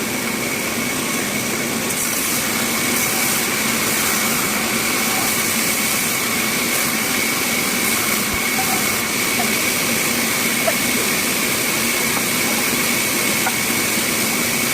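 Bandsaw running steadily: a constant rushing noise with a steady high whine over a low hum, unchanging throughout.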